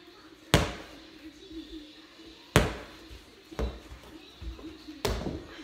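Basketball bouncing on a hard indoor floor: three sharp smacks about two seconds apart, with a couple of softer thuds between them.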